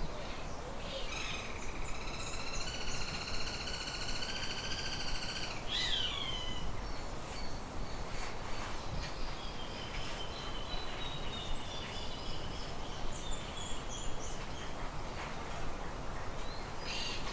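Birds calling over a steady background hiss: one long, harsh, even-pitched call lasting about four seconds, then a short falling note, and later a thin, drawn-out, slowly falling whistle.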